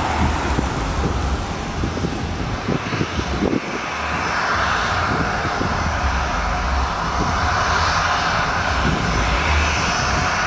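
Jet engines of an Airbus A319 running as the airliner turns onto the runway, the roar swelling after about four seconds with a rising high whine near the end. A car passes close by at the start.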